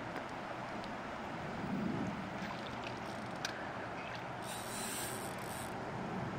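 Steady rush of a river flowing past a cobble bank, with a few faint ticks.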